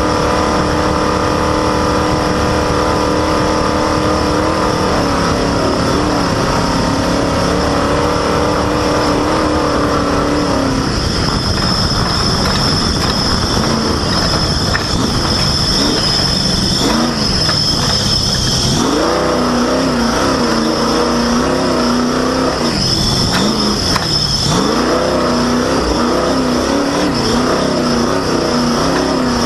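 Off-road race vehicle's engine running under load, holding a steady pitch and then dropping about ten seconds in, after which it rises and falls with the throttle over a constant rush of noise. A loud, high, steady squeal from a slipping drive belt comes in about eleven seconds in, stops, and returns for a couple of seconds later on.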